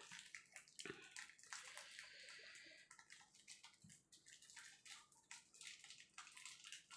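Near silence with faint wet clicks and smacks: food being dipped into sambal and eaten by hand.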